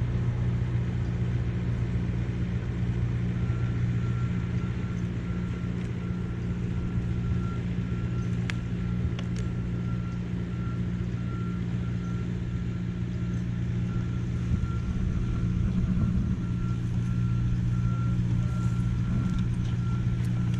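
Skid steer engine running steadily as the machine inches backwards, hauling on a rope, with its backup alarm beeping from a few seconds in.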